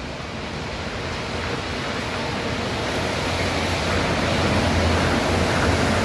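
Electric train running, a steady rushing rumble that grows steadily louder.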